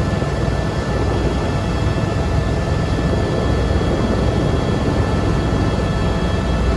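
Helicopter turbine and rotor noise heard from inside the cockpit, a steady, unbroken din with a faint high whine running through it.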